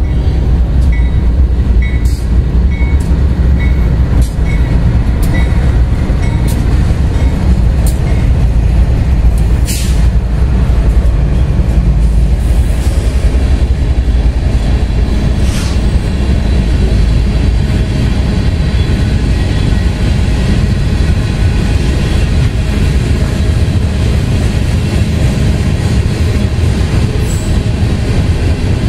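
BNSF freight train's cars rolling past close by: a heavy, steady rumble of wheels on rail, broken by sharp clanks now and then.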